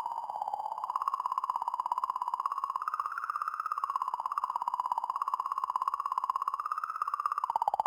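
Sonified recording of oscillations in comet 67P Churyumov–Gerasimenko's magnetic field, picked up by the Rosetta spacecraft and shifted up into hearing range. It is a fast-pulsing, warbling tone that wanders up and down in pitch, rising a little about three seconds in and dropping near the end.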